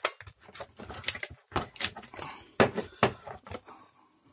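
Hard plastic and metal parts of a cordless drill's motor and gearbox clicking and knocking irregularly as they are handled and separated by hand.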